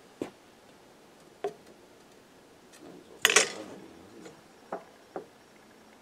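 A few scattered sharp knocks and taps on wooden boards, about five in all, the loudest a short clattering knock about halfway through.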